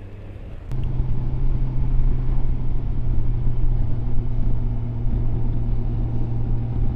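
Motorcycle engine running at a steady pitch on the move, with wind and road rumble; it comes in suddenly about a second in, after a quieter stretch of riding sound.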